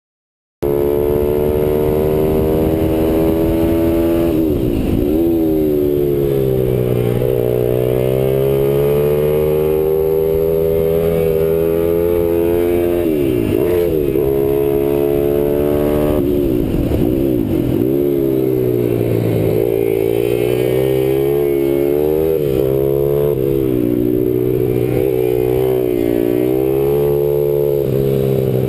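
A RAV SM7 pit bike's Z160S 160cc single-cylinder four-stroke engine heard onboard at racing pace. The engine starts abruptly under a second in. Its note climbs as it revs through the gears and falls away sharply each time the throttle closes for a corner, several times over.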